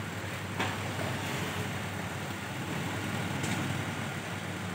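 Steady low background hum, with a faint click about half a second in and another about three and a half seconds in.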